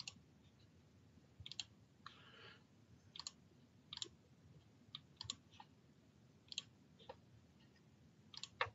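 Faint computer mouse clicks, scattered and often in quick pairs, as on-screen text fields are selected and dragged into place.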